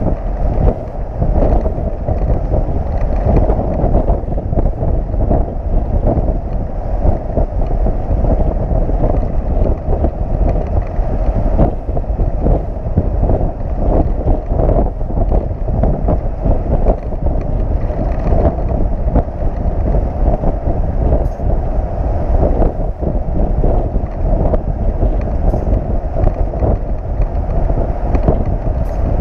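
Steady wind noise buffeting the microphone of a camera riding on a motorcycle strapped to a moving flatbed tow truck at highway speed, over the rumble of the truck and road. The sound is loud and gusty and stays even throughout.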